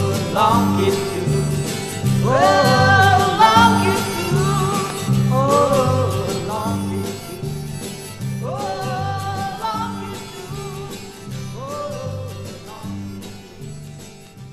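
Closing bars of a late-1970s Thai pop-rock band recording played from a vinyl record: a lead line that slides up into its notes over a stepping bass line, fading out over the second half.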